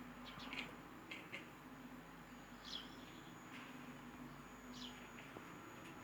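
A house cat chattering its teeth at a bird it wants to catch, excited and unable to meow: a few quick soft clicks in the first second and a half, then a short high downward chirp twice, near three and five seconds in.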